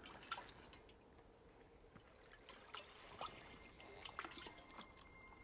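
Quiet sound of a man drinking from a leather waterskin: faint swallowing and trickling water, with scattered small wet clicks.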